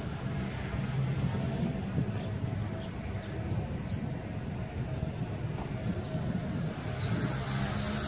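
Gusty wind rumbling on the microphone, with a faint steady whine from a small toy quadcopter's motors flying overhead.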